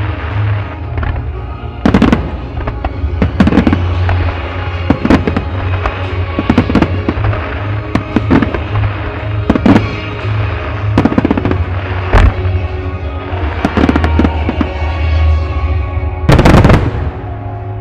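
Starmine fireworks: aerial shells bursting in quick succession, a sharp report every second or so, ending in a dense, loud cluster of bursts near the end, with music playing throughout.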